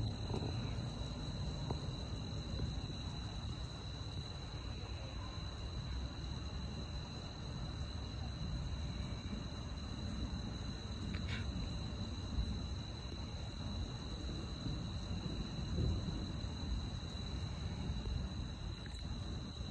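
Crickets chirring in one steady, unbroken high-pitched drone, over a steady low rumbling noise.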